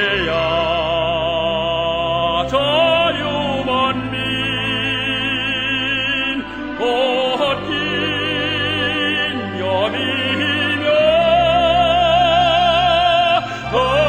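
Background classical music with an operatic feel: long held notes with a wide vibrato over a steady low accompaniment.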